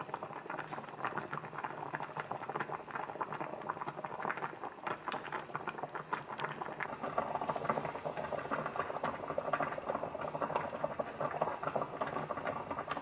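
Water at a rolling boil in a pot of spaghetti on a gas hob, bubbling and popping in a dense, irregular crackle that grows a little louder about halfway through.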